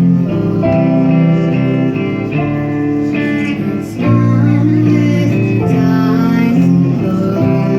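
Guitar music: held notes and chords that change every second or so.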